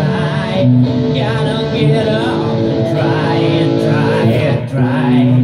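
Live band music: an electric guitar playing with a singer's voice over it.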